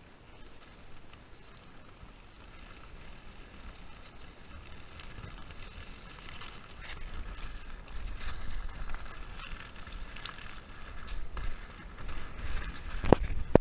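Big-wheeled off-road inline skates rolling over a dirt trail, a low rumbling rattle with wind on the microphone that grows louder about halfway through, and a sharp knock near the end.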